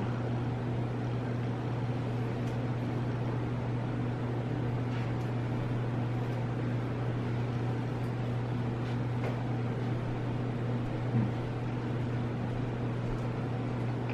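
Steady low hum and hiss of room background noise, with a few faint clicks.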